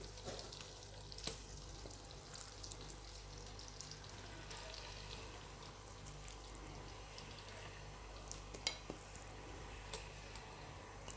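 Pieces of lamb frying in melted butter in a kazan pot, a faint steady sizzle with scattered small crackles and a few light knocks as more meat is laid in.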